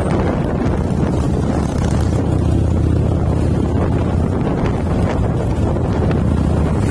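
Harley-Davidson V-twin motorcycle engine running steadily at cruising speed, heard from the rider's seat, with heavy wind noise on the microphone.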